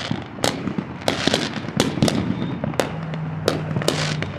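Fireworks going off in an irregular run of about ten sharp bangs and cracks over a continuous crackle.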